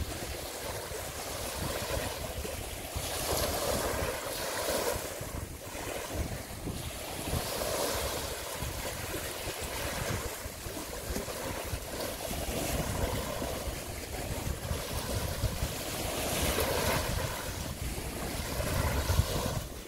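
Small waves washing on a shallow sea beach, swelling and easing every few seconds, with wind rumbling on the microphone.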